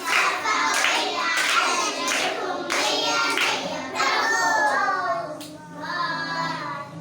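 A group of young children clapping and chanting together. The claps come in the first few seconds, and the chant turns into sing-song voices in the second half.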